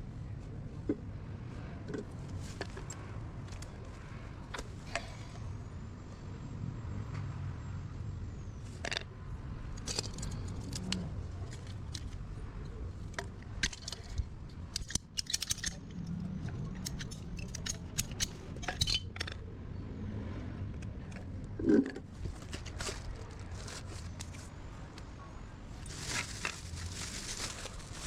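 Scattered clicks, taps and scrapes of small hard objects being handled during pipe repair work, over a steady low rumble, with a louder knock about three quarters of the way through and a brief hissing, rustling stretch near the end.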